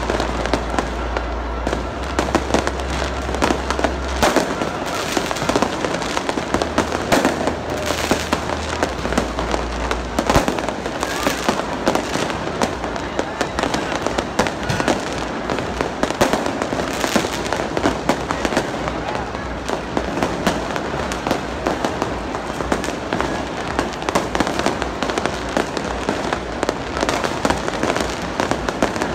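Aerial fireworks bursting and crackling overhead, many bangs and pops in quick succession without a break, over the chatter of a large crowd.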